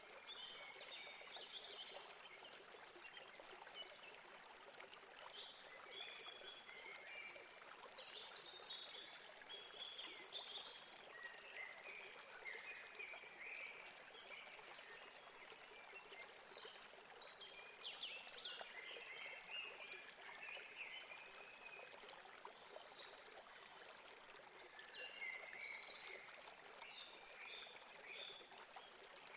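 A river running over rocks in a steady, quiet rush of water, with small birds chirping in scattered bursts.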